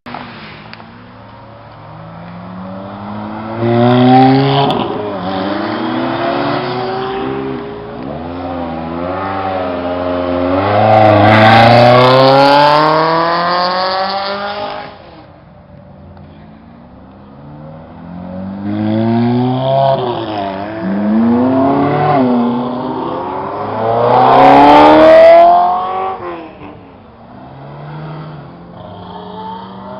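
High-performance sports car engine accelerating hard through the gears, its note climbing and dropping at each gear change, in two runs, the second starting about halfway through. Brief sharp crackles come at the loudest peaks of each run.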